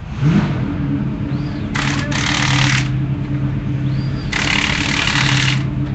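Pneumatic impact wrench working on the race truck's front wheel, rattling in two bursts of about a second each. Under it runs a steady low machine hum that starts with a short rise in pitch right at the beginning.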